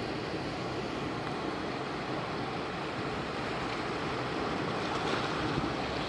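Ocean surf breaking and washing over a sandy beach: a steady rush of waves, a little louder near the end.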